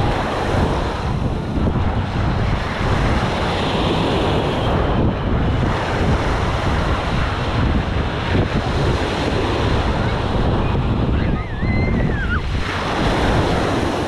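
Wind buffeting the microphone over the steady wash of small waves breaking on the shore, with a brief wavering high call near the end.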